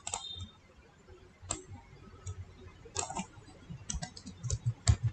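Faint computer mouse and keyboard clicks: a few separate clicks, then a quick run of key taps near the end as a word is typed.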